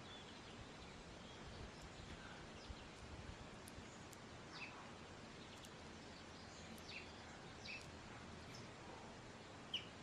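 Quiet, scattered short chirps of European goldfinches over a steady background hiss, with one louder chirp near the end.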